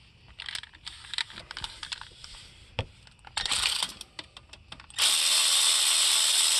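Metal tool clicks and clinks while bolts are undone on a golf cart's Robin 350cc engine. About five seconds in comes a loud, steady rushing noise lasting about two and a half seconds, after a shorter burst of the same kind.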